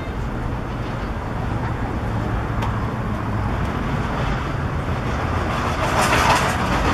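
Ballpark crowd noise: a steady murmur over a low rumble, growing louder about six seconds in.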